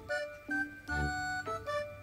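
Background music: a light tune of short stepped notes over a low bass that pulses about once a second.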